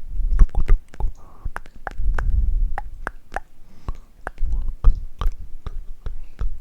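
Close-miked ASMR clicks and smacks, the kind made by the mouth and by tapping small objects: a fast, irregular run of sharp clicks with low thumps beneath.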